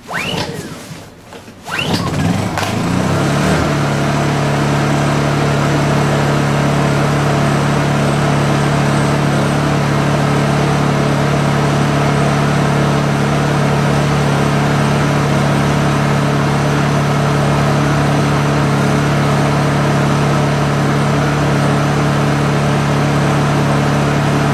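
Honda EU2000i inverter generator's single-cylinder four-stroke engine pull-started cold with the choke on: a whir of the recoil cord, the engine catches about two seconds in, then runs steadily at an even speed.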